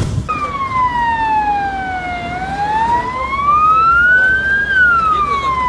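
An emergency vehicle's siren wailing: a single tone sliding slowly down, then up, then down again, over a steady low rumble. Theme music cuts off right at the start.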